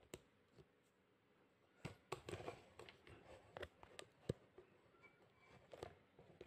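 Near silence: quiet room tone with a few faint, scattered clicks and taps.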